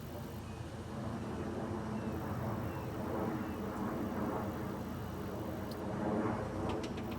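UAZ Patriot SUV engine running at idle, a steady low hum with the vehicle standing still.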